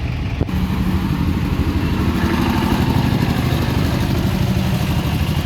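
A motor vehicle's engine running steadily close by, a low hum that holds its pitch, with a single sharp click about half a second in.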